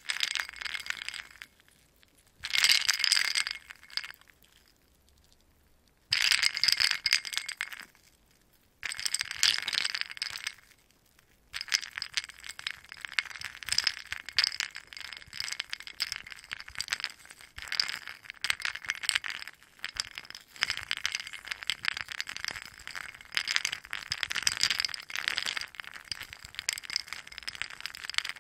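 Ice cubes rattling and clinking against one another, first in four short bursts a few seconds apart, then shaken or stirred without a break from a little under halfway in.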